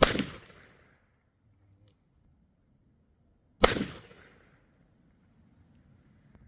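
Two shots from a .44 calibre black-powder cap-and-ball revolver, one at the very start and one about three and a half seconds later, each a sharp crack that dies away over about a second.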